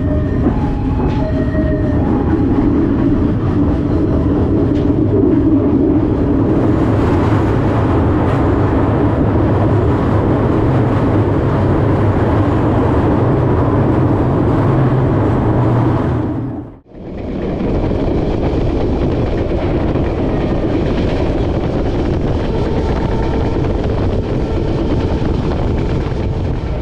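Local economy train running on the rails: a steady, loud running noise that drops out briefly about two-thirds through and then resumes.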